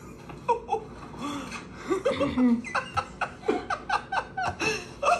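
A person laughing: voiced, gliding sounds at first, then a run of short, even ha-ha bursts, about three a second, through the second half.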